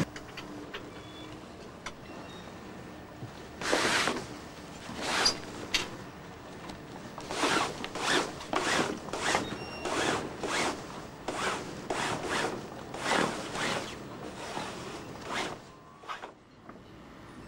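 Sail cover on a sailboat's boom being zipped or worked closed by hand: a long series of short zipping strokes, about two a second, from about three seconds in and fading out near the end.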